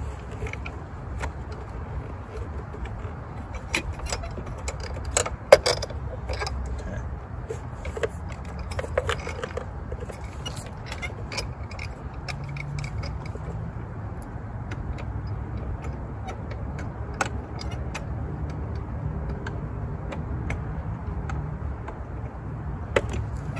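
Irregular metallic clinks and clicks of hand tools and hardware being handled while a car battery is fitted, the sharpest about five and a half seconds in, over a steady low rumble.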